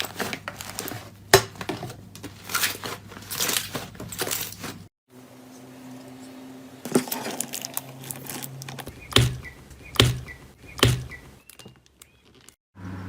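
Slime being squeezed and poked by hand, crackling and popping in irregular bursts with sharp clicks. The sound cuts out briefly twice, about five seconds in and near the end.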